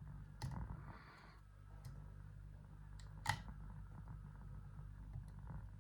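Faint metallic clicks and a brief scrape from a lock pick working the pin stack of a Lockwood 245 padlock under light tension: three sharp clicks spaced about a second and a half apart, the loudest about three seconds in, as pins set. A low steady hum runs underneath.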